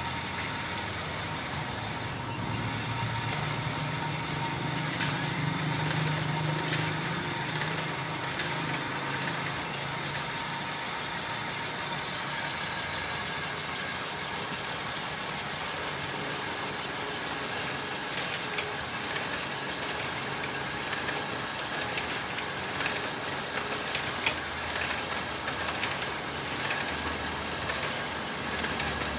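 Homemade cylinder honing machine running, its electric motor driving a hone through belts and gears inside an engine block's cylinder bore: a steady mechanical whir with a thin steady tone and a few light clicks in the second half.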